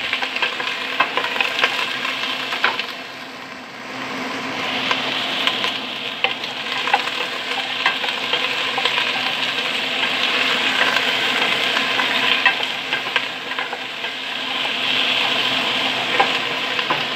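Potato and carrot chunks sizzling and crackling in hot oil in a stainless steel pot, being par-fried until half-browned, with a wooden spatula stirring and knocking against the pan. The sizzle dips briefly about three seconds in.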